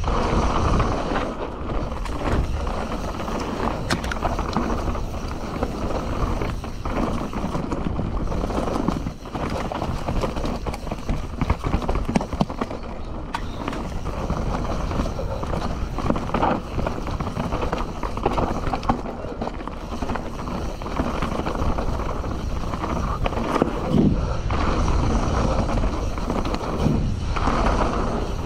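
Canyon Torque CF 9 full-suspension mountain bike riding down a dirt trail: a steady rolling rumble from the tyres on dirt, broken by frequent clattering knocks from the bike over bumps.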